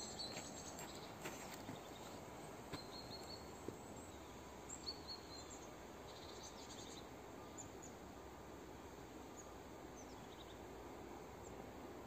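Quiet woodland ambience: a steady low hiss with scattered short, high bird chirps, and a few soft clicks in the first five seconds.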